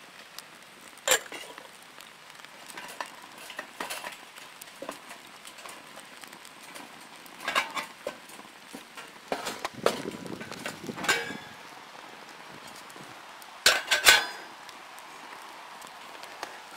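Metal camping pots and cups clinking and knocking on small pocket stoves, a few sharp clinks at irregular intervals with the loudest about a second in and two close together near the end, over a faint steady hiss of the stove fires and heating water.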